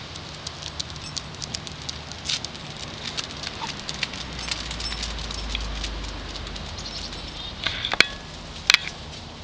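Dogs' claws and paws ticking and pattering on a concrete path as two hounds walk along it, a steady scatter of light clicks, with two sharper clicks near the end.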